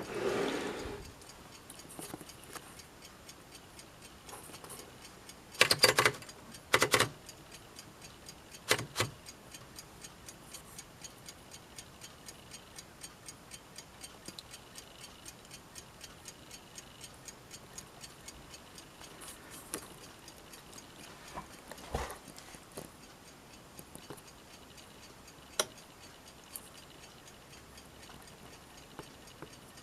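Faint, steady ticking, about two ticks a second, with a few louder mechanical clacks and clatters from the 1946 Underwood manual typewriter's mechanism, a cluster of them about six seconds in and single ones later.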